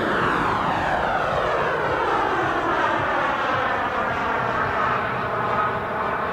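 Model jet turbine of a large-scale RC Aermacchi MB-339, a Behotec 190 Gold, running with a steady rushing whine as the jet climbs away. A sweeping, phasing sound slides down in pitch as it recedes.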